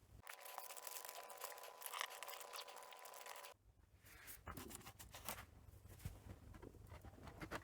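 Adhesive strip being peeled off, a tearing screech with a faint whine in it lasting about three seconds, followed after a short pause by small clicks and rustles of handling laptop parts.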